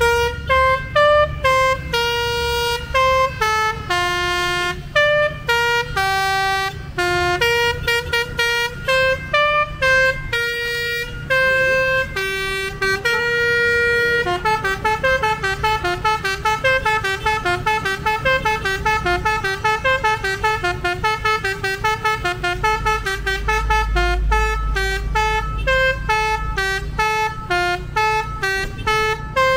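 Tour bus's basuri melody air horn playing a tune note by note, longer notes at first, then from about halfway a fast run of short notes, three or four a second. The bus engine rumbles underneath, swelling near the end.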